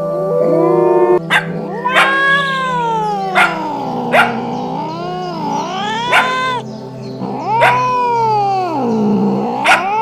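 A dog howling: long calls that slide up and down in pitch, one after another, over background music with occasional sharp taps.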